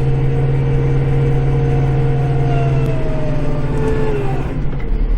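Compact tractor's diesel engine running steadily, heard from inside the cab as a loud low drone, with a fainter whine that drops in pitch about four seconds in.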